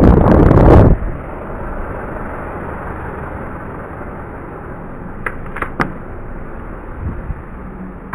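Wind rushing over a cyclist's camera microphone while riding, very loud and buffeting for the first second, then settling to a steady rush. About five seconds in come three short, sharp clicks.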